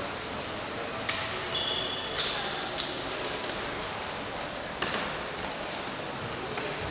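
A few sharp snaps and thuds, irregularly spaced, over the murmur of a crowd in a large hall: the strikes and stamps of a karate kata.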